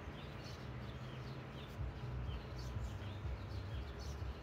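Small birds chirping: short high chirps every half second or so, over a low background rumble that gets a little stronger about two seconds in.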